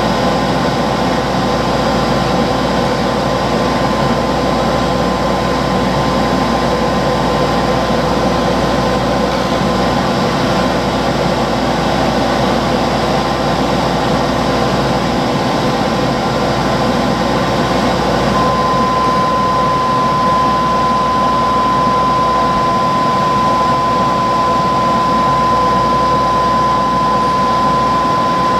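Skate sharpening machine running steadily, its motor and grinding wheel making a constant whirring hum while a clamped skate blade is worked along the wheel. A high steady whine grows much stronger about two-thirds of the way through.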